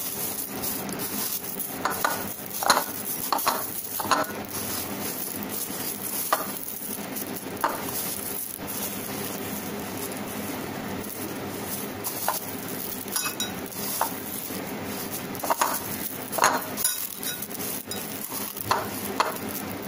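Crushed cornflakes crunching and rustling under a hand as batter-coated potato wedges are pressed and rolled in them, with scattered louder crackles now and then.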